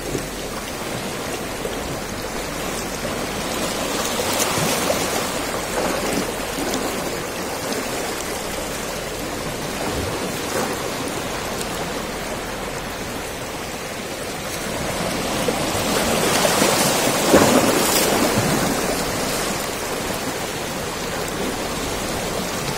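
Small sea waves washing and foaming over rocks in a steady hiss that swells louder twice: about four seconds in, and for a few seconds past the middle.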